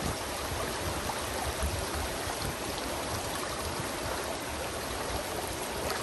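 Shallow rocky stream running over stones, a steady rush of flowing water.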